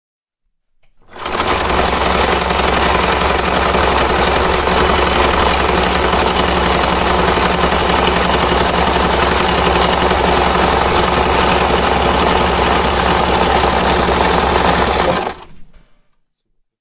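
A small engine running steadily at one fast, even speed with a rapid chatter. It starts about a second in and fades out near the end.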